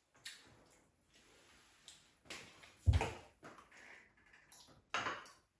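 Knocks and clicks of a glass and small plastic supplement bottles being handled and set down on a kitchen counter, the loudest a thump about three seconds in and another near the end.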